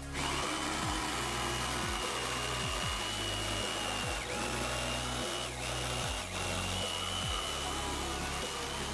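Corded DeWalt DW300 jigsaw (500 W) running with a steady high whine as its blade cuts a curve through a wooden board, dipping briefly a few times. Background music with a bass line plays under it.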